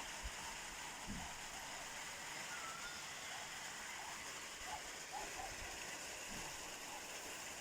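Steady faint hiss of room tone and recording noise, with a few very faint short sounds.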